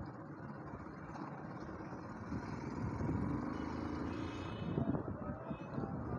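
Motorcycle engine running at low speed while the bike rolls slowly through street traffic, with a steady low rumble.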